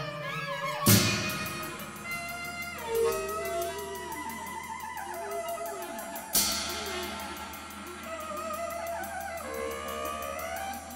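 Background music: an instrumental piece with a shifting, gliding melody and two sharp hits, one about a second in and one about midway.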